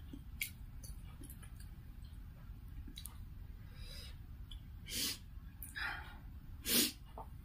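Close-miked eating sounds: faint clicks of fingers working in a brass bowl of chicken soup, then three short breathy mouth noises, the last near the end the loudest.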